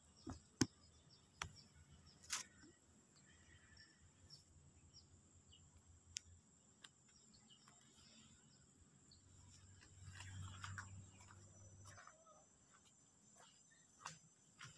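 Near silence: faint outdoor ambience with a steady high-pitched insect drone and a few small, sharp clicks.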